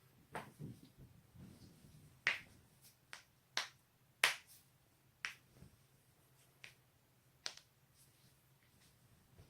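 A person's joints being cracked: about ten sharp pops at uneven intervals, the loudest a little over two seconds in and about four seconds in, with soft rustling of body movement in the first two seconds.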